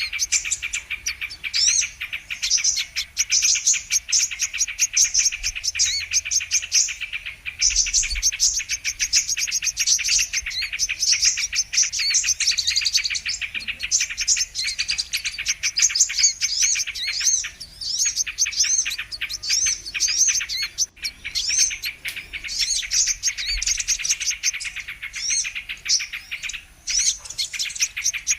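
Sunbird (kolibri kelapa) song used as a trapping lure: a dense, unbroken stream of rapid, high chirps and twittering trills, with short breaks only a few times.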